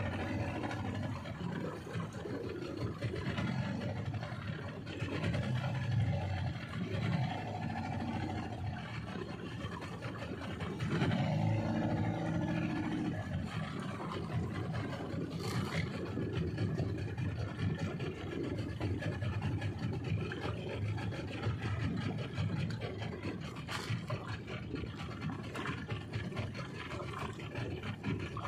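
A small fishing boat's engine running steadily as the boat moves along while trolling, with noise from wind and water over it.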